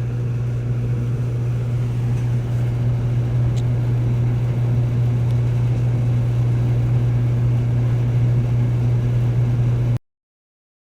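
A steady low mechanical hum that holds an even pitch, then cuts off abruptly about ten seconds in.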